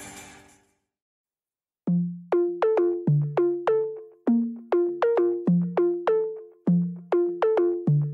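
Background music only. One track fades out in the first half second, there is about a second of silence, then an electronic keyboard track begins about two seconds in: short notes that die away quickly, about three a second.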